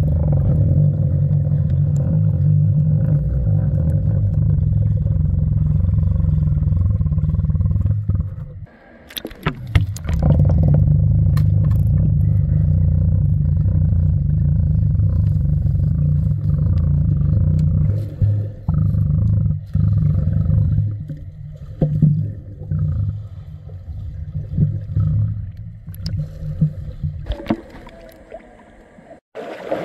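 Muffled low rumble of water heard through a submerged camera. It drops out briefly about nine seconds in with a few splashes and clicks, and thins out near the end as the camera comes up.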